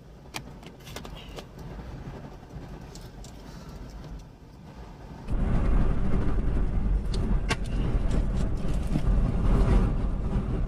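Low rumbling noise of a car on the move, with a few sharp clicks; about five seconds in it turns suddenly much louder.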